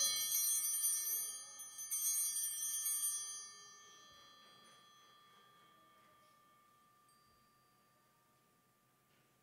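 Altar bells (a cluster of small sanctus bells) shaken at the elevation of the consecrated host. They ring again about two seconds in, then die away over several seconds.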